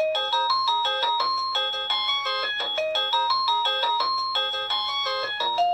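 Mansso wireless doorbell receiver playing one of its electronic chime melodies through its small speaker, a quick run of bright, clear notes. Near the end it switches to a different ringtone.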